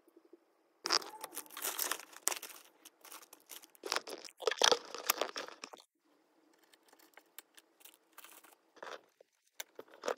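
Handling noise from flat-pack furniture parts and their packaging: two stretches of rustling and scraping, then a few light clicks and taps near the end.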